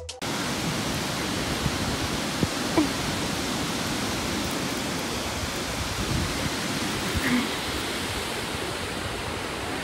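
Steady rushing noise with a couple of faint short sounds in it, one about three seconds in and one about seven seconds in.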